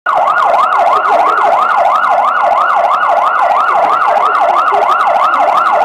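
Emergency vehicle siren in fast yelp mode, loud, its pitch sweeping up and down about three times a second.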